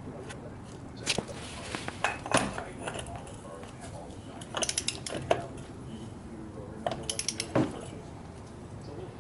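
Metal hub parts and hand tools clinking and knocking in a few irregular clusters of sharp clicks, over a steady low hum.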